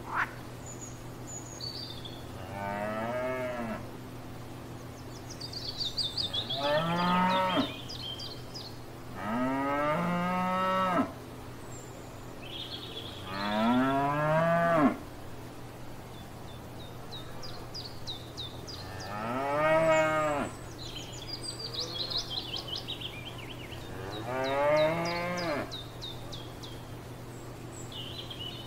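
Cows mooing: about six drawn-out moos a few seconds apart, each one rising and then falling in pitch.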